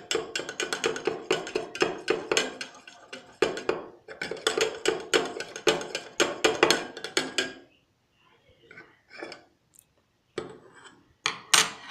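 A metal spoon stirring rapidly in a container, clinking against its sides several times a second in two long runs, with a brief pause between them. A few lighter taps follow near the end.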